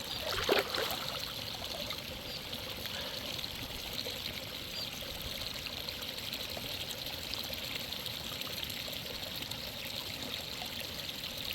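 Water steadily trickling and pouring in a natural hot spring fed by a river-side stream, a continuous even splashing flow.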